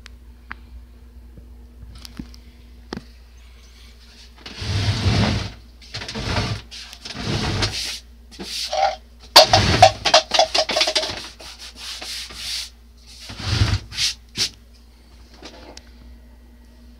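A string of rough rubbing and scuffing noises with a few short squeaks, starting about four and a half seconds in and ending near the end, over a steady low hum.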